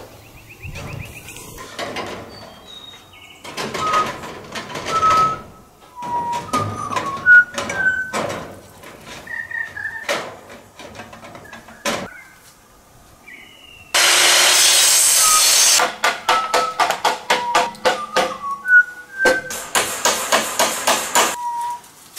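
Building work on a corrugated-iron shed: scattered knocks and hammer strikes, with a run of quick strikes in the second half and a loud steady rush of noise for about two seconds past the middle. Short whistled notes come and go throughout.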